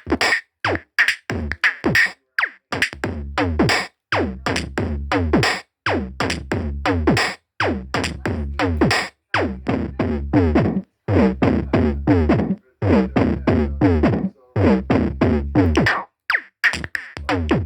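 Electronic music with a drum machine and synthesizer, chopped into short stuttering phrases whose notes slide downward in pitch and cut off abruptly, with brief gaps between them.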